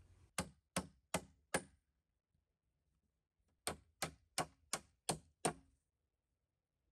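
A hand tool striking wood: ten sharp blows in two runs, four and then six, about three a second.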